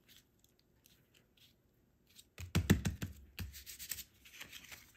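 Hands pressing and rubbing a paper journal card flat on a cutting mat, smoothing down a freshly glued stamp. Faint taps at first, then about halfway a cluster of soft thumps and papery rubbing strokes, easing off to lighter rubbing.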